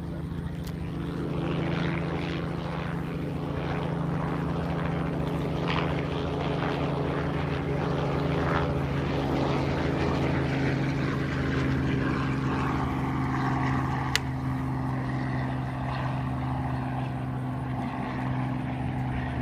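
The four radial engines of the Boeing B-17 Flying Fortress 'Aluminum Overcast' running with a steady low drone. The drone grows louder about two seconds in, and there is one brief sharp click about two-thirds of the way through.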